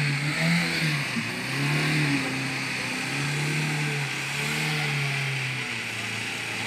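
Lada Niva's engine revving in about four rising and falling surges as the 4x4 crawls through a muddy stream and climbs out up the bank.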